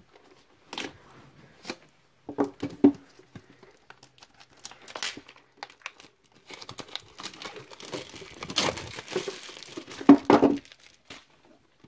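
Plastic shrink-wrap on a metal card tin being slit with a pocket knife and peeled off, crinkling and tearing. Scattered short crackles at first, then a busier, louder stretch of crinkling in the second half.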